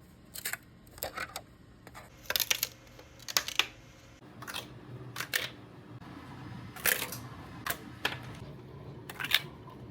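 Hard 3D-printed plastic snapping and clicking in short, sharp cracks, coming irregularly about once or twice a second and sometimes in quick pairs.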